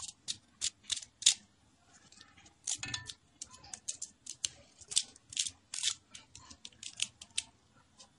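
Kernels being shelled by hand off a fresh maize cob, giving irregular sharp clicks and snaps several times a second as they break away and drop into the pan, with a louder rustle about three seconds in.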